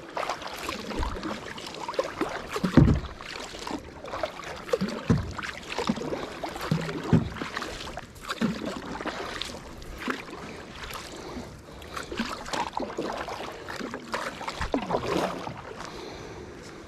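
Kayak paddling: the paddle blades dipping and splashing in the water in uneven strokes, with dripping between them and a single thump about three seconds in.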